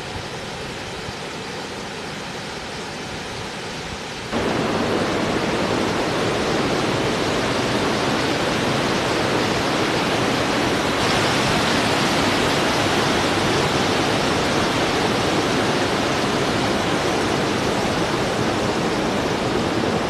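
Water pouring over a wide, low waterfall spilling across a rock ledge: a steady rushing noise that gets louder about four seconds in and brighter around eleven seconds.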